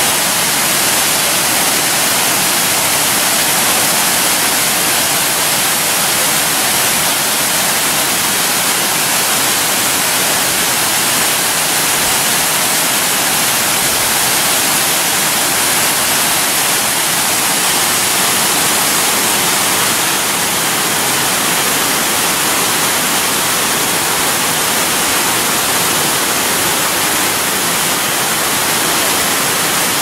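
Water falling over the tiered limestone cascades of a large waterfall: a steady, even rushing hiss, strongest in the high range, with no breaks.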